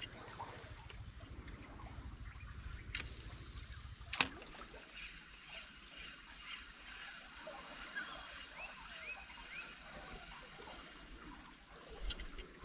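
Steady high-pitched insect chorus with short bird chirps, and a single sharp click about four seconds in. Wind rumbles on the microphone until the click.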